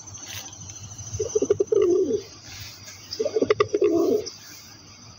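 Feral rock pigeon cooing twice, about a second in and about three seconds in. Each phrase is a few quick stuttering notes running into a longer wavering coo.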